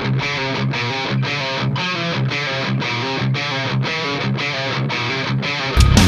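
Background rock music: a rhythmic, pulsing electric guitar riff at about three beats a second, with a louder, heavier section with deep bass coming in near the end.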